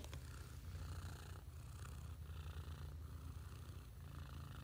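Domestic cat purring close to the microphone: a faint, low rumble that breaks off briefly with each breath.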